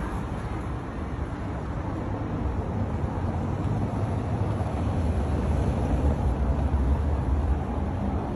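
Street traffic noise: a steady wash of passing vehicles with a deep rumble that grows louder around the middle and eases shortly before the end.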